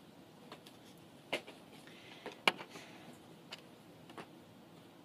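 Irregular sharp taps and clacks, about six in all and the loudest about two and a half seconds in, from a hockey stick working a ball or puck in the background during stickhandling practice.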